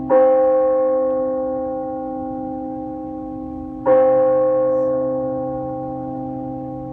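A bell tolled slowly as a memorial: two strokes about four seconds apart, each ringing on and slowly fading, with the earlier ring still sounding under each new stroke.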